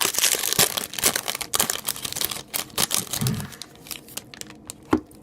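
Hockey card pack wrapper being torn open and crinkled: dense crackling that thins out about halfway through, with a sharp click near the end.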